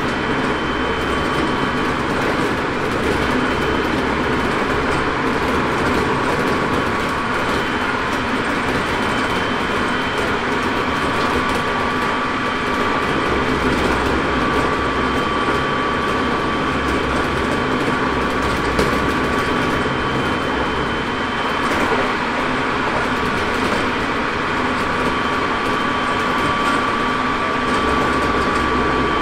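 Hokuso 7300 series electric train with a Toyo GTO-VVVF drive, heard from inside the car cruising at about 110 km/h. A steady rumble of wheels on rail, with thin steady tones that come and go.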